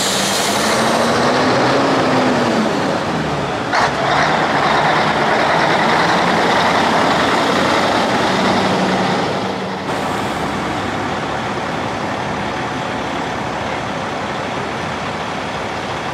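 Diesel engines of vintage cabover semi tractors running as the trucks drive slowly by. The engine pitch rises and falls in the first few seconds. A loud rush of noise starts suddenly about four seconds in and cuts off near ten seconds.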